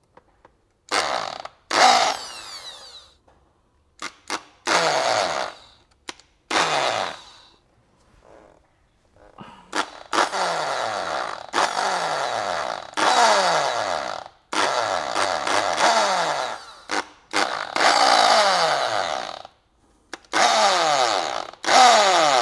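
Electric drill with a small bit boring pilot holes for wood screws into an MDF speaker mounting ring. It runs in about a dozen separate bursts of one to two seconds, and each time it stops the motor whine falls away.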